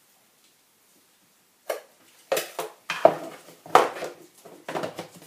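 Kitchen dishes and utensils being handled: about seven sharp clinks and clatters, starting about a second and a half in and running for some three seconds.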